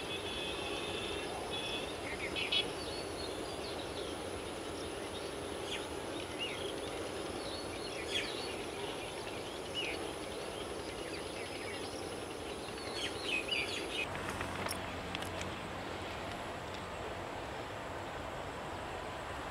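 Outdoor ambience: a steady background noise with scattered short bird chirps. About fourteen seconds in the background changes and a faint low hum comes in.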